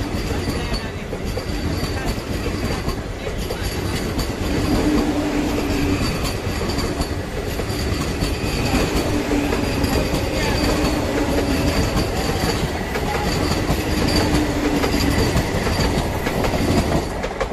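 Vande Bharat Express electric train set running past at speed close by: a steady rush of wheel and rail noise with clickety-clack. A hum swells and fades every couple of seconds as the coaches go by.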